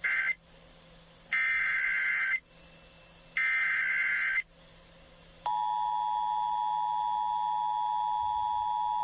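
Emergency Alert System SAME header: short bursts of raspy digital data chatter, about a second apart, mark the start of a new alert. About five and a half seconds in, the steady two-tone EAS attention signal starts and holds.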